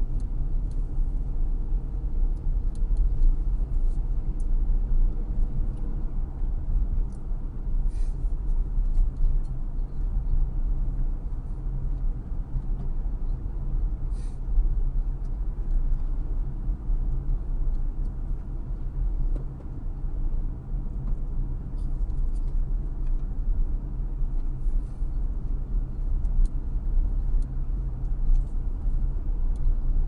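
Steady low rumble of a moving car, heard from inside its cabin by a windshield dashcam. A few faint, brief clicks sound about eight and fourteen seconds in.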